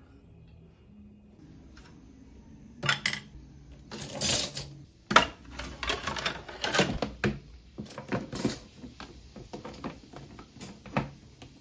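Hard household objects being handled, clattering and knocking irregularly with short scrapes, starting about three seconds in.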